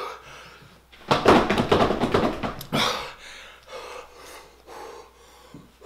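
A man breathing hard through his mouth and blowing out air through pursed lips, a loud burst of breaths about a second in, then softer puffs, reacting to the burn of very spicy fried chicken.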